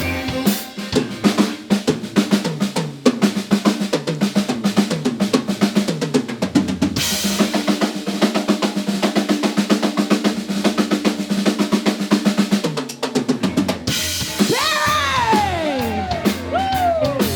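Drum kit solo in a live funk band: fast kick, snare and rimshot strokes. Cymbals join about seven seconds in and drop out around fourteen seconds. Near the end, a few high swooping tones sound over the drums.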